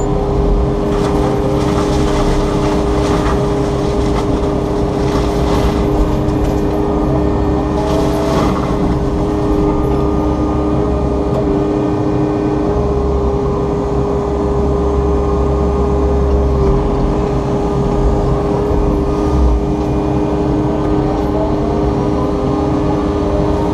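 Takeuchi TB290 excavator's diesel engine running under load with its FAE mulching head spinning, a steady loud drone carrying two constant hums. A few brief surges of noise come through as the head works into the brush.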